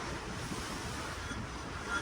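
Ocean water washing steadily below a cruise ship, with wind gusting on the microphone and a stronger gust near the end.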